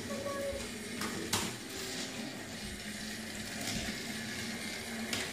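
Motorized Thomas toy train and plastic track set: a faint steady motor hum with a couple of sharp plastic clicks, one about a second in and one near the end.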